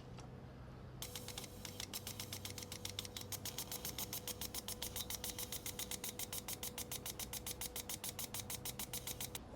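Fuel injector being pulsed on a tester: fast, even clicking, about eight clicks a second over a steady electric hum, starting about a second in and stopping shortly before the end.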